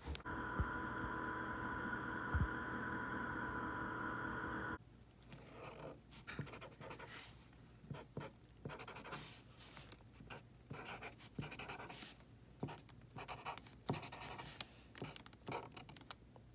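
Red felt-tip marker writing numbers on lined paper, heard as short, irregular scratchy strokes. These follow a steady hum with a few fixed tones that cuts off suddenly about five seconds in.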